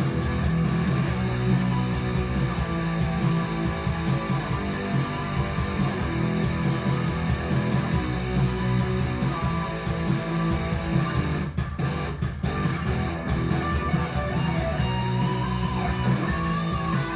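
Guitar-led instrumental music played back through hi-fi speakers driven by a Fosi Audio ZA3 amplifier, over a steady strong bass; a lead line with bending notes comes in near the end.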